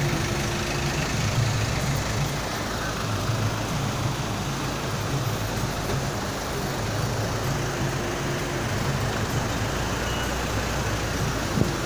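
Heavy rain falling, a steady hiss, with a low rumble underneath and a brief knock near the end.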